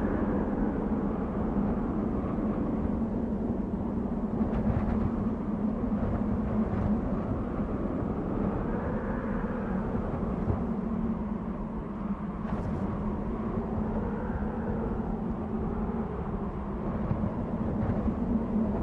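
Desert wind blowing steadily, with gusts that swell and fade every few seconds over a constant low hum.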